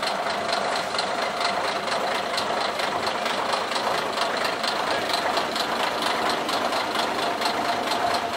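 Engine of a vintage Saurer bus idling, with an even clatter of about four to five knocks a second over a steady drone.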